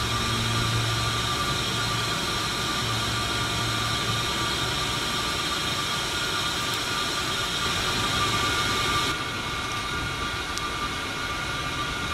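Steady whine and hiss of an aircraft turbine engine running at an airport, with several steady high tones and, for the first few seconds, a low hum underneath. The level drops slightly about nine seconds in.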